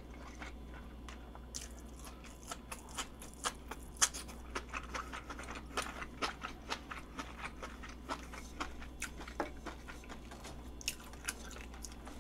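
Close-miked chewing of grilled asparagus: a steady run of small crunchy, wet mouth clicks, about two or three a second.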